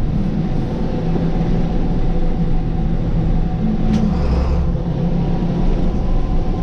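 International DT466E inline-six turbo diesel running steadily while driving, heard from inside the dump truck's cab as a drone over low rumble and road noise. The engine is running on a newly replaced injector. A single sharp click comes about four seconds in.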